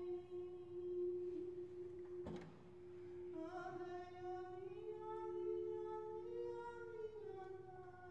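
A voice singing long, slowly sliding notes over a steady held drone note, with a single sharp knock a little over two seconds in.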